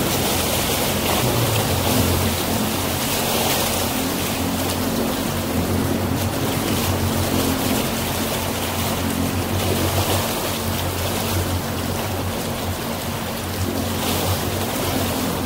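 Motorboat engine running steadily under way, with a few even low tones, over a constant rush of water and wind.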